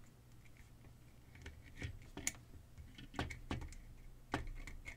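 Scattered small clicks and taps as alligator-clip test leads are handled and clipped onto the terminals of an opened LED flashlight, the clips knocking against its plastic housing.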